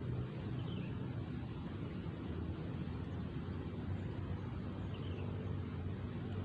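Steady low rumble with a faint low hum underneath, unchanging throughout.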